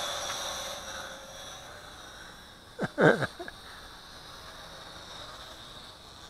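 ZC Toys Z1 quadcopter's motors and propellers giving a quiet, high-pitched whine that fades over the first second or two as the drone climbs away, then stays faint. About three seconds in there is one short, loud noise close to the microphone.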